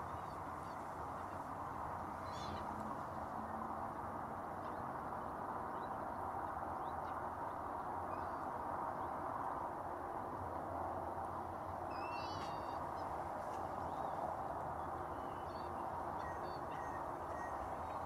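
A few short, wavering bird calls over a steady outdoor hiss: one a couple of seconds in, a cluster about two-thirds of the way through, and a few faint ones near the end.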